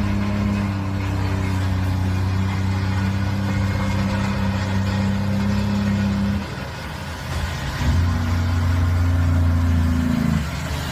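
Logging truck's diesel engine running steadily under load. It dips for about a second and a half around six seconds in, then picks up again.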